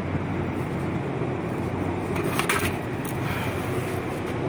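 Steady low mechanical hum, with one short metallic scrape about two and a half seconds in as the worn clutch disc is handled against the pressure plate.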